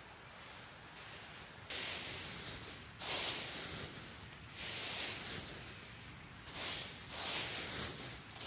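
Dry fallen leaves crunching and rustling as they are scooped by hand into a canvas sack, a handful every second or two, beginning about two seconds in.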